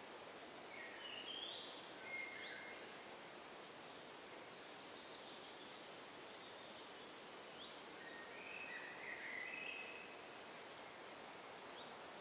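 A small songbird singing two short phrases about six seconds apart, each a quick run of notes ending in a thin, high falling note, over a steady faint hiss of forest ambience.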